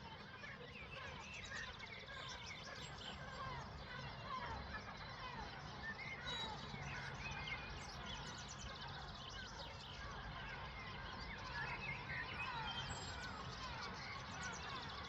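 Many small birds chirping at once, a faint, dense chatter of quick short calls throughout, over a low steady hum.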